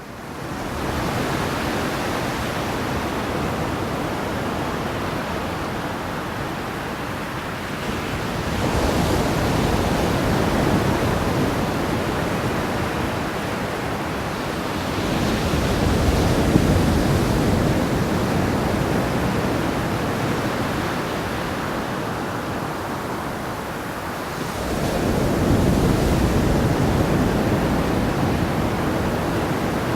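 Sea waves on a shore: a continuous hiss of surf that fades in at the start, with three louder waves swelling in and washing back about every eight seconds.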